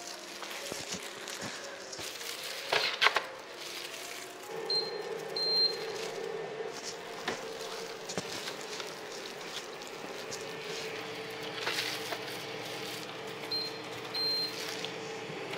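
Automatic ramen cooker at work: it gives two short high beeps as its panel is pressed, then runs with a steady hum while it dispenses water into a paper ramen bowl. Two more short beeps come near the end at another button press. Before the hum starts there are a few clicks and knocks of the bowl being handled.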